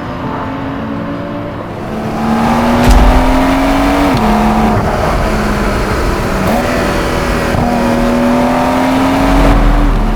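Porsche 911 Carrera's twin-turbo flat-six accelerating hard, its pitch climbing and then dropping sharply on upshifts about four and six and a half seconds in. It gets louder about two seconds in, and it falls away near the end as the driver lifts off.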